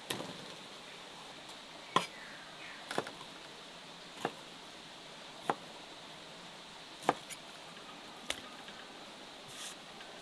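Large knife chopping raw red meat into chunks: about seven sharp single chops, roughly a second or so apart at an uneven pace.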